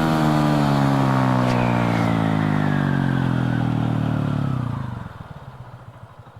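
Motorcycle engine, a Pulsar NS 125's single-cylinder, running with its pitch falling slowly as the bike rolls off and slows. The sound fades away about five seconds in.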